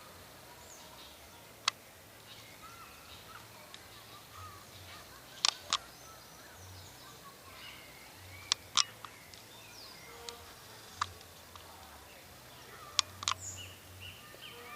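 Faint bird chirps over a steady background hiss, broken by about ten sharp clicks or knocks, several of them in quick pairs, which are the loudest sounds.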